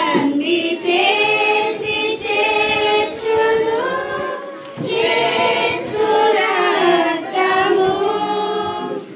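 Church congregation singing a hymn together in drawn-out sung phrases, with a short break between lines about halfway through.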